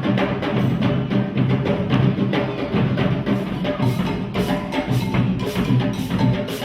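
Percussion group drumming a fast, steady rhythm of many sharp strikes over a low drum pulse.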